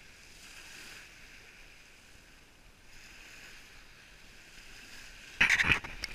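Small waves washing up on a pebble shore, a soft hiss that swells and fades every second or two. About five seconds in, a sudden loud burst of rough noise with several sharp cracks hits close to the microphone.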